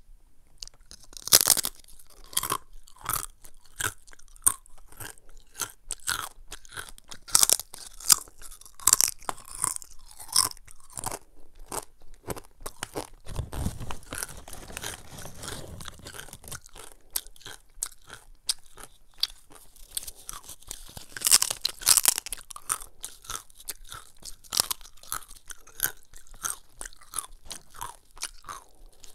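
Close-up crunching and chewing of crisp cassava chips, a dense run of rapid crackles with a few sharp, loud bites, strongest about a second and a half in and again about three quarters of the way through.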